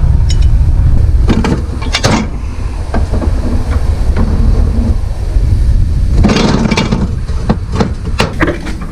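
Several sharp metal knocks and clatters from a hydraulic cylinder being worked on during disassembly: two about two seconds in, then a quick run of them from about six seconds on. Under them runs a steady low rumble of wind on the microphone.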